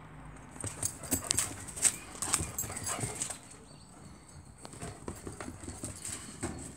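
German Shepherd dogs playing rough, with a dense run of sharp clicks and scuffles for the first few seconds, a short lull, then more scuffling near the end.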